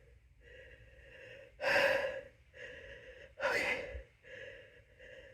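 Two sharp gasping inhales about two seconds apart, with fainter breathing between them. This is the catching breath of a sneeze building up while a paintbrush tip tickles the inside of the nose.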